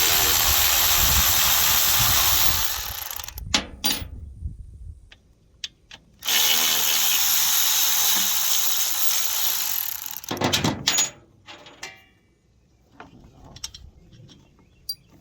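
Power tool run in two long bursts, each about three to four seconds, loosening a tight pump mounting bolt, with short knocks and clicks of the tool and the part between and after.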